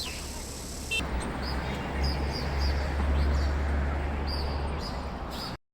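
Street noise with a steady low rumble, and a small bird chirping over it in a run of short high notes; the sound cuts off abruptly near the end.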